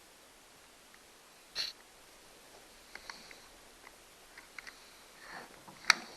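Scattered light clicks and taps of chainsaw parts being handled during a teardown, with a short sniff about a second and a half in and a sharper click near the end.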